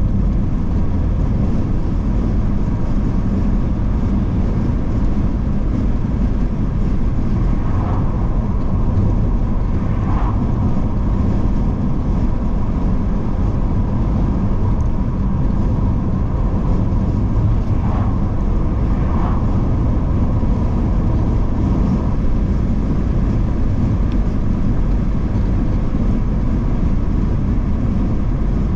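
A car being driven at a steady pace, its low road and engine rumble heard from inside the car.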